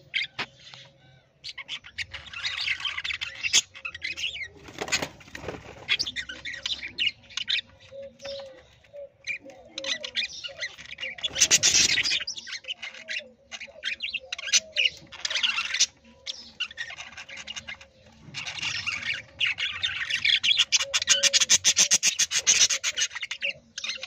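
Several budgerigars chattering and warbling, a near-continuous run of quick squeaky notes and clicks, with a burst of wing flapping about halfway through.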